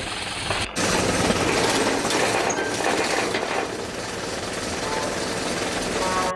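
Heavy machinery running with a rapid, steady rattle, as a crane hoists a bronze statue on chains. The noise cuts out for an instant less than a second in and comes back louder.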